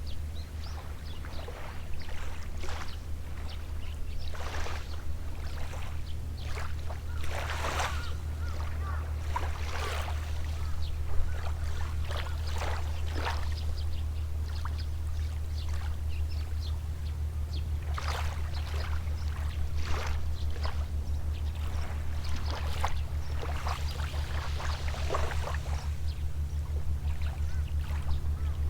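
Small, gentle sea waves lapping and washing onto the shore every second or two, over a steady low hum.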